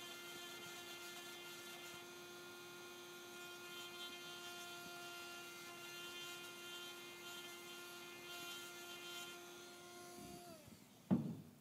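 Small electric fan motor spinning a fan in a balancing machine's cradle for an imbalance reading, a steady hum with a high whine over it. Near the end it slows briefly and stops, followed by a single sharp knock.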